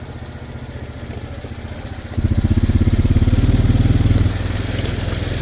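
Small off-road vehicle engine running at low speed, throttled up about two seconds in and eased back a couple of seconds later.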